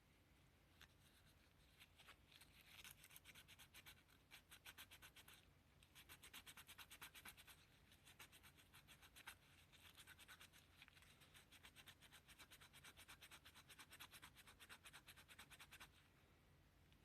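Quiet, rapid scraping strokes, several a second, in runs of a few seconds with short pauses.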